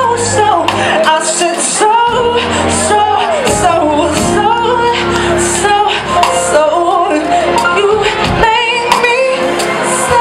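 Live soul/R&B band with a female lead singer holding and bending sung notes with vibrato over a steady drum beat, its cymbals ticking about twice a second, and bass. The sound has the echo of a large hall.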